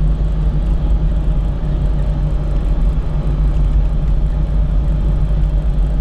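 A motor vehicle driving: a steady low engine and road rumble with a constant hum.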